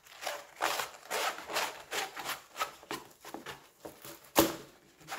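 Stiff diamond painting canvas being rolled up by hand against a table: repeated rustling, scraping rubs, quite loud, with one sharp knock a little past four seconds in.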